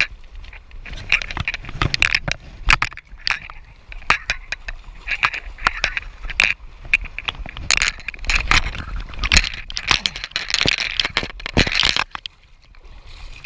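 Hooked rainbow trout splashing and thrashing at the water's surface as it is played in close, a busy run of sharp, irregular splashes that stops about twelve seconds in.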